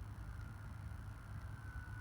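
Wind buffeting the microphone with a low rumble, over the faint, thin whine of the E-flite T-28 Trojan's electric motor and propeller, falling slowly in pitch.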